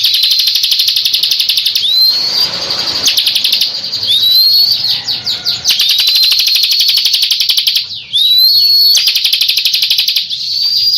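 Bar-winged prinia (ciblek) singing. Each phrase is a loud, rapid, high trill opened by a rising upswept note, and a new phrase starts about every two seconds.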